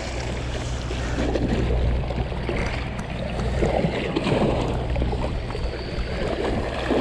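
Steady low engine drone, as from ships passing in the strait, under a continuous wash of sea water at the shoreline.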